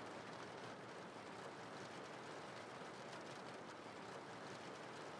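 Faint, steady rain falling, an even hiss.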